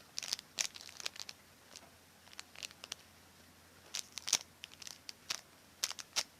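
Plastic wrapping crinkling in short bursts as a squishy in its packaging is handled and squeezed.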